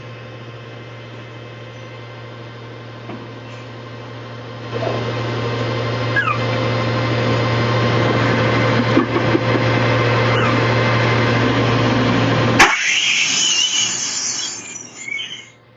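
Heavy truck engine running steadily with a low hum, getting louder about five seconds in. It cuts off suddenly with a click near the end, and a hiss follows.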